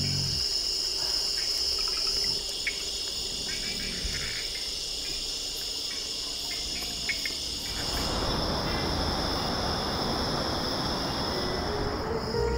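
Insects shrilling in a steady, high, unbroken drone. About two-thirds of the way in, a broad rushing hiss joins it.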